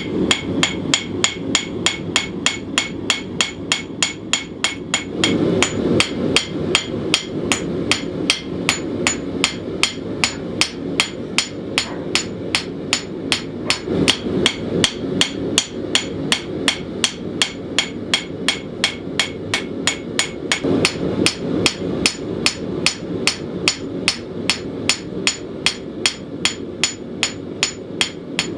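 Hand forging a knife blade: a hammer strikes hot steel on the anvil at a steady pace of about three blows a second, with the anvil ringing on each blow, while the edge bevels are drawn in. A steady rushing noise runs underneath.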